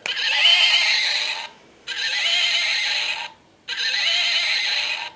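A plush toy's sound chip playing the same high, wavering recorded sound three times in a row, each about a second and a half long with short pauses between.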